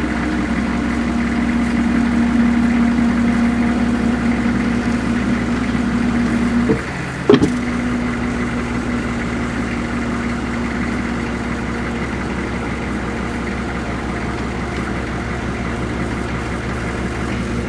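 Rollback tow truck's engine running steadily at raised idle with the hand idler up, a constant hum. About seven seconds in it dips briefly with a sharp click, then carries on as before.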